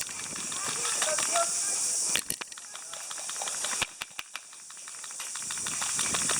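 A steady high-pitched hiss throughout, broken by a few sharp snaps of airsoft gun shots about two seconds in and again around four seconds in.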